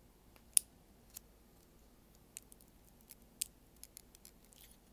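Plastic parts of a Yolopark Optimus Primal model kit clicking and snapping as it is assembled: a dozen or so short, sharp, irregular clicks, the loudest about half a second in.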